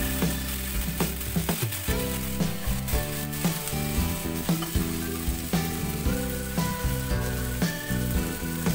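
Cauliflower florets frying in oil in a non-stick pan: a steady sizzle with scattered clicks from a spatula stirring. Background music plays over it.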